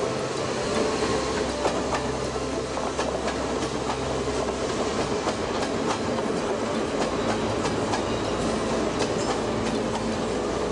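An old pre-war Berlin S-Bahn electric train (Baureihe 477) running past on curved track. It makes a steady rumble with the hum of its traction motors, and the wheels click irregularly over rail joints.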